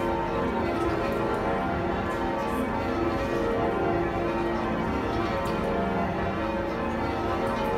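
A ring of ten church bells being lowered in peal, all ten still ringing in turn. Their strokes follow each other closely in a continuous, even wash of overlapping bell tones.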